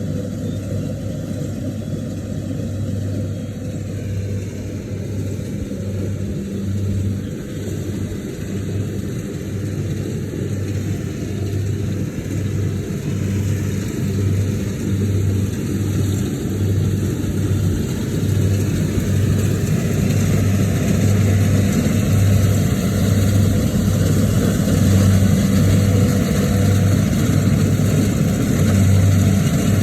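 An engine running steadily with a low pulsing hum. It grows somewhat louder in the last third.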